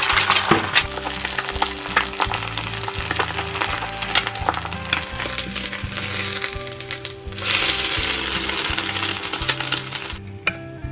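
An egg frying in oil in a nonstick pan, sizzling, with sharp clicks and scrapes of a metal spatula against the pan. The sizzle stops abruptly near the end.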